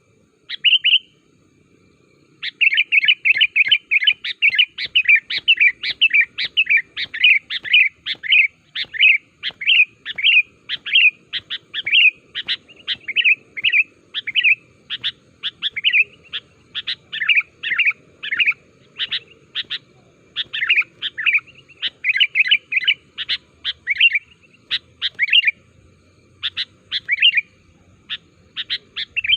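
Sooty-headed bulbul (kutilang) calling rapidly and persistently: a single sharp chirp, then a long run of short chirps about two to three a second, thinning out with short pauses near the end.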